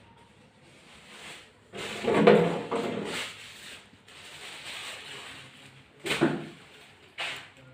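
Kitchen cupboards and drawers being handled: a cluster of knocks and rattles about two seconds in, the loudest part, then two shorter sharp knocks near the end.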